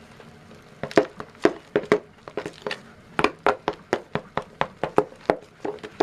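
A spoon knocking and scraping against a bowl while stirring shaving cream into glue for slime: irregular clicks and knocks, about two or three a second, starting about a second in.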